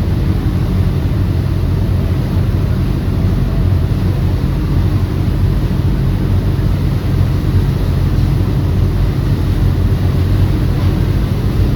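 Loud, steady low engine drone, an even hum with a rushing noise over it, as heard aboard a running vehicle.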